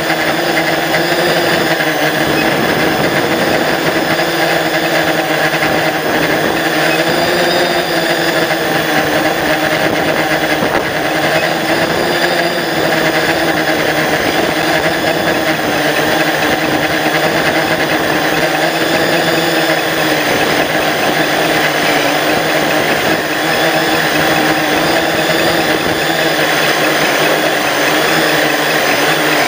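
Multirotor drone's electric motors and propellers running, a loud steady buzz whose pitch wavers slightly as it holds and adjusts its hover. Heard from a camera mounted on the drone itself.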